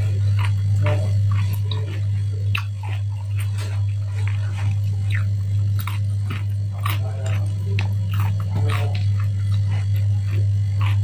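Close-up chewing and eating by hand: many short, irregular crunches and mouth clicks as fried food and rice are chewed, over a steady low hum.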